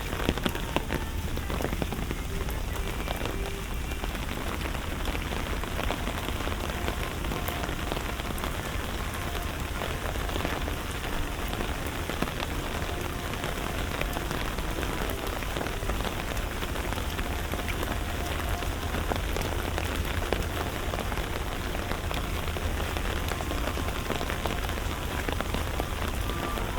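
Steady rain falling on hard surfaces, a dense patter of small drop ticks, over a steady low rumble.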